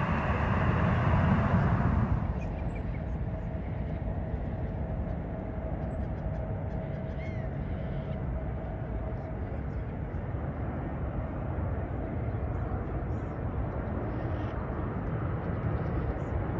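Jet airliner engine noise: loud for about two seconds, then dropping abruptly to a steadier low rumble. A faint thin steady tone runs for several seconds, with a few faint high chirps over it.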